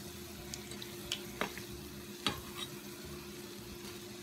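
Hot grease frying around balls of cornbread batter in a pot, with a steady sizzle, while a metal slotted skimmer rolls them over and clicks lightly against the pot about five times in the first few seconds.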